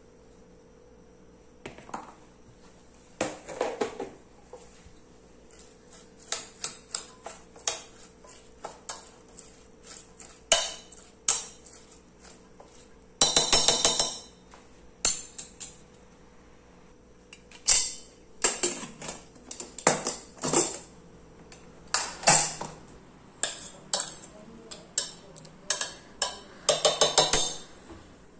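Steel spoon clinking and scraping against a stainless steel pressure cooker while chopped cabbage is stirred in it: many separate clinks, with longer runs of scraping about halfway through and near the end.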